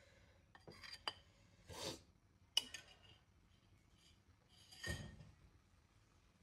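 A metal spoon clinking against a bowl and a non-stick frying pan as marinated chicken is scraped into the pan: three sharp clinks in the first three seconds, then a couple of soft swishes about two and five seconds in.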